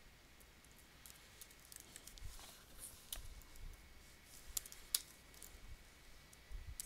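Faint, scattered keystrokes on a computer keyboard, a few separate clicks at irregular intervals.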